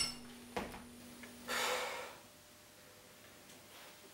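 A person's short, sharp breath about a second and a half in, after a faint click; otherwise quiet.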